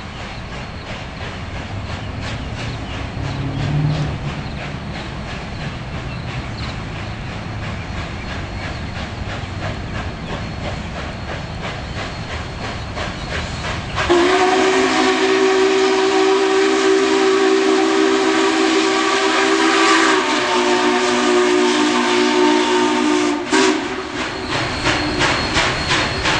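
Union Pacific 844, a 4-8-4 Northern steam locomotive, working along with a steady rhythmic beat. About halfway in, its steam whistle sounds one long blast of about nine seconds, shifting in pitch slightly near the end before cutting off, then the rhythmic beat carries on.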